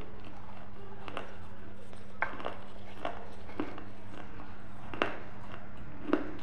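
Close-miked chewing of a thin, brittle tan piece: about seven short, sharp crunches, irregularly spaced, the loudest two near the end. A steady low hum runs underneath.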